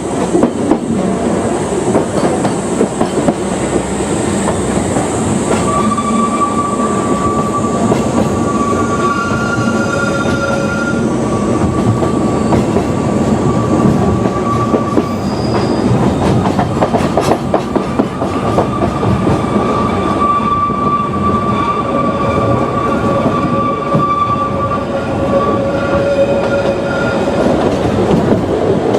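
Ōigawa Railway Ikawa Line train running, its wheels clattering steadily on the track. From about six seconds in, high, steady wheel squeal comes and goes for most of the rest, the sound of wheels grinding through curves.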